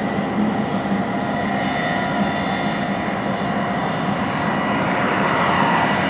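Big diesel engines of John Deere combines and grain-cart tractors running steadily on the road, with a rush of noise building near the end as a machine draws close.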